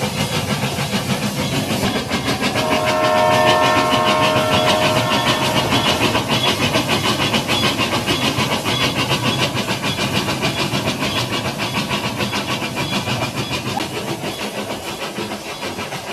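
Toy train set running past on its track, its wheels clattering in a fast, even rhythm. About two and a half seconds in, a whistle sounds for about three seconds.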